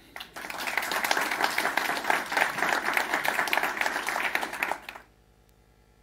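Audience applauding, many hands clapping at once. The clapping cuts off abruptly about five seconds in, leaving only a faint low hum.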